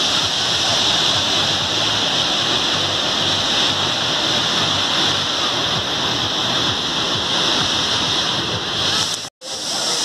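Waterfall's steady rush of water falling into its pool, with a split-second drop-out near the end.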